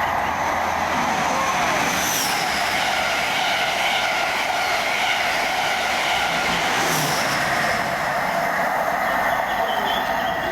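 Passenger train running, a steady loud rumble and rail noise, with two brief high-pitched swishes about two and seven seconds in.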